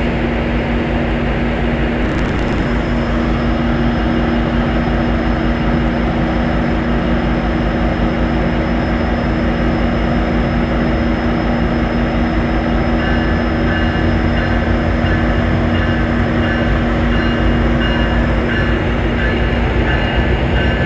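Metrolink diesel locomotive running with a loud, steady drone. About two-thirds of the way through, a regularly repeating ringing tone starts up over it.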